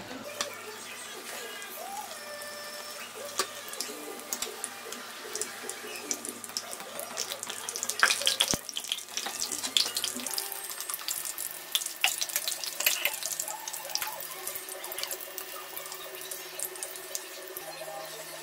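Breaded pizza rolls sizzling and crackling as they fry in hot oil in a wok, with a louder burst of crackling about eight seconds in.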